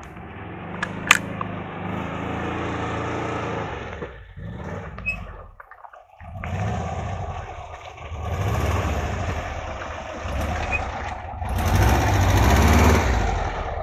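Volkswagen Kombi van engine labouring through slick mud, the revs surging up and easing off again several times, loudest near the end. A couple of sharp clicks come about a second in.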